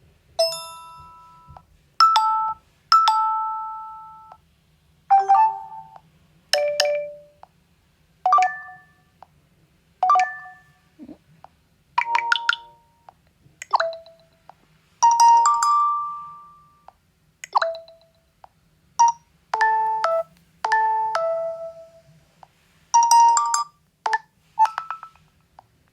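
Notification tones of a Nokia 2.4 phone played through its speaker one after another: about twenty short chimes and jingles, each dying away quickly before the next starts.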